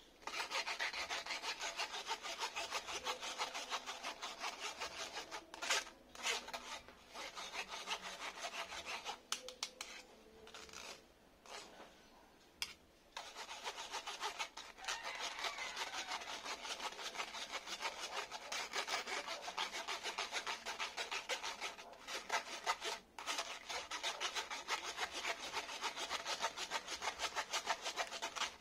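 Metal spoon scraping beaten egg through a metal mesh strainer: fast, even rasping strokes, with a few brief breaks and a longer lull about a third of the way through.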